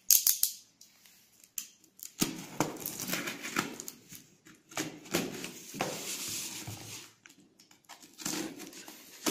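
Packing tape on a cardboard box being cut open: irregular scraping and rustling strokes of the blade and tape across the cardboard, with a few sharp clicks at the start.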